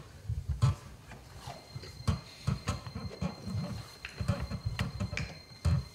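A man's wordless vocal sounds: short low grunts and growls with mouth clicks in between.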